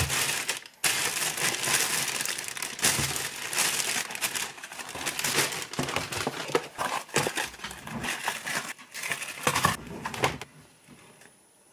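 Takeout packaging being unpacked: a plastic delivery bag, cardboard boxes and the paper lining of a fried-chicken box crinkle and rustle in irregular handling noise, dying down near the end.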